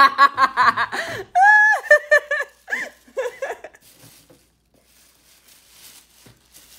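A girl laughing and giggling, then faint rustling and crinkling of plastic shopping bags as she rummages in them.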